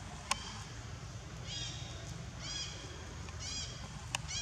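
Four short, high-pitched animal calls, each arching up and down, about a second apart from a second and a half in, over a steady low rumble. Two sharp clicks, one just after the start and one near the end.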